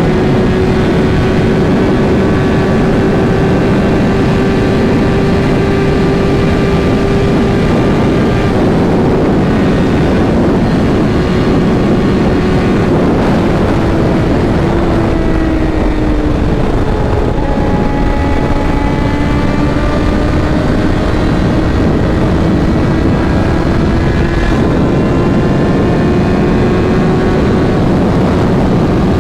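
Suzuki GSX-R1000's tuned inline-four running under way at a steady note over heavy wind rush. Its pitch eases down about halfway through, drops a step a few seconds later, then slowly climbs again.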